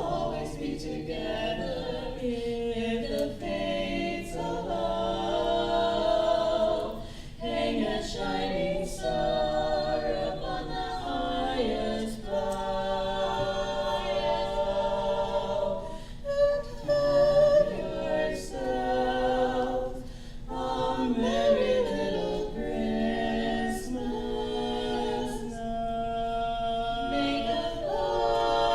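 A cappella vocal ensemble singing a Christmas song in harmony, several voices sounding together with no instruments.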